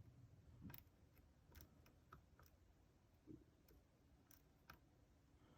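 Faint, scattered clicks of a lock pick probing and setting the pins of a Yale euro cylinder lock held under a tension wrench.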